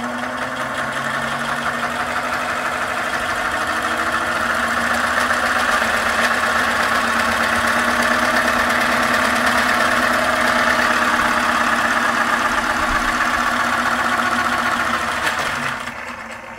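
3D-printed turbocharger model spinning at full power: a steady whirring from its drive, freshly greased printed gears and spinning impeller, building over the first few seconds. It falls away as the power is cut near the end.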